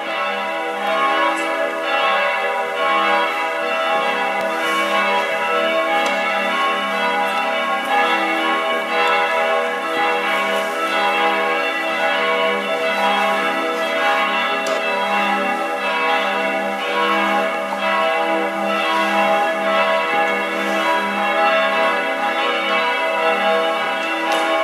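Several church bells ringing together in a continuous peal, their overlapping tones sustained and slowly pulsing.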